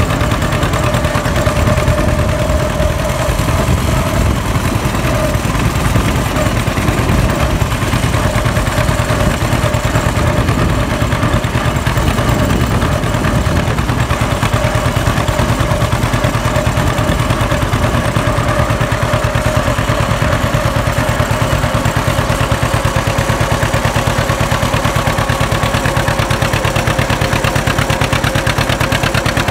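John Deere B's two-cylinder engine running steadily while the tractor drives along, its exhaust giving an even, rapid popping beat with a steady whine above it.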